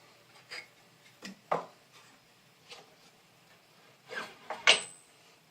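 Scattered light knocks and clicks of a wooden workpiece and tools being handled on a miter saw table, with no saw motor running; a sharper pair of knocks near the end is the loudest.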